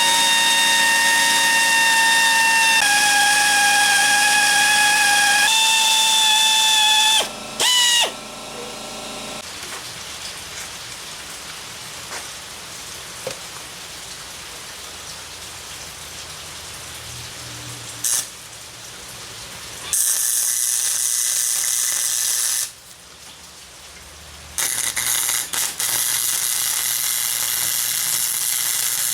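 An electric drill whines at high speed for about seven seconds while drilling into a broken exhaust stud, its pitch stepping down and up as the load changes. Later come two loud stretches of MIG welding arc crackle, each a few seconds long, as weld is laid into the drilled stud.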